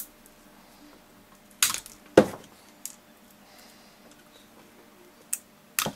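Side-cutting pliers biting into and cracking the glass-reinforced plastic housing of a windscreen washer pump: several sharp separate snaps and clicks, the loudest a little after two seconds in.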